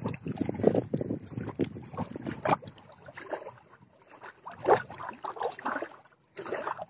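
Wind buffeting the microphone, with small waves lapping at the lakeshore, in uneven gusts. The sound drops out briefly near the end.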